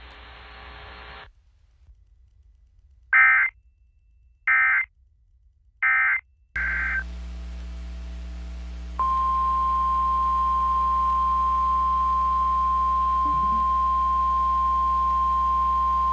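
Emergency Alert System SAME header: three short bursts of digital data tones about a second and a half apart. About nine seconds in, NOAA Weather Radio's long, steady single-pitch warning alarm tone starts, signalling that a new warning is about to be broadcast.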